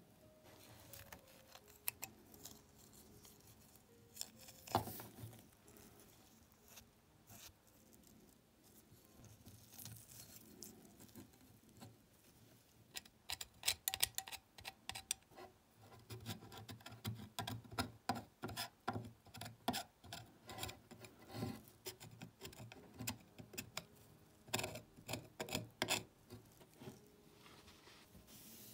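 Irregular light clicks and taps from hand work on a model car's small parts. They are sparse at first, with one sharper knock a little under five seconds in, and come thick and fast through the second half.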